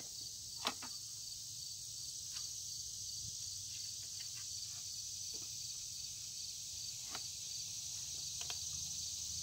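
Steady high-pitched insect chorus with an evenly pulsing chirp underneath. A few light clicks and rustles come from the canvas-cased mess kit being handled, the sharpest about a second in.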